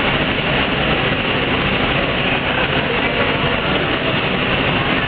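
Industrial flatbread production line running: a steady, loud machine noise from the conveyors and oven, even and unbroken.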